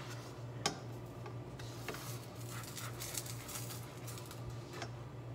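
A spatula and second utensil clicking and scraping against a stainless steel frying pan as a quesadilla is flipped, with one sharp clack under a second in and lighter scattered clicks after. A steady low hum runs underneath.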